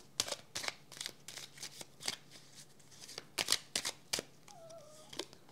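A deck of cardboard oracle cards being shuffled and handled: an irregular string of quick papery flicks and snaps of card against card.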